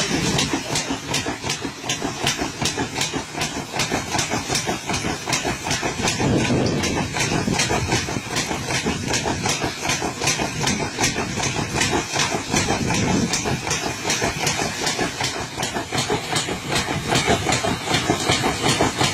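Threshing machine (patoz) running steadily, its engine drive under a fast, even rhythmic clatter.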